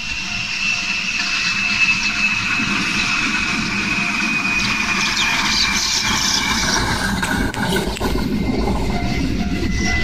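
JR Shikoku 7200 series electric train approaching and running through a level crossing: a rumble and clatter of wheels on the rails that grows heavier in the second half, with the crossing's warning bell ringing.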